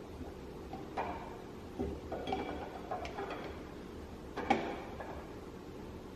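Steel camshaft knocking and clicking against the journals of a Toyota 2JZ VVT-i aluminium cylinder head as it is set in place and turned by hand: a few light knocks, the loudest about four and a half seconds in.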